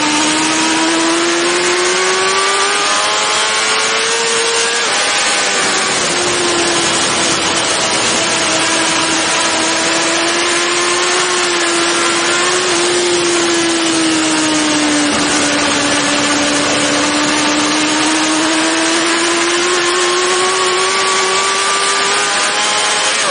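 BMW S1000RR superbike's inline-four engine running at high revs on track, under a strong rushing hiss of wind. The pitch climbs for the first few seconds, drops at about five seconds, holds nearly steady through a long fast stretch, then climbs again toward the end.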